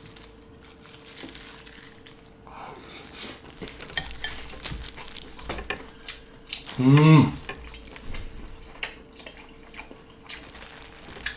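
Close-miked chewing of a peeled soy-sauce-marinated raw shrimp: soft wet mouth sounds, lip smacks and small clicks. About seven seconds in, a loud hummed "mmm" of enjoyment.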